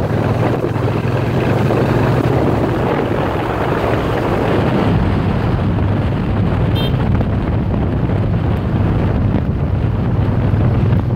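2017 Triumph Bonneville T120's 1200 cc parallel-twin engine running at a steady cruise, heard from the saddle with strong wind noise on the microphone. A brief high chirp about two-thirds of the way through.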